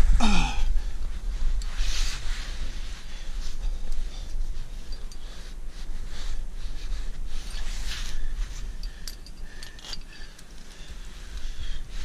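Wind rumbling on the microphone, with scattered scuffs and rustles of gloved hands, clothing and climbing gear against the granite wall as a climber edges along a narrow rock ledge.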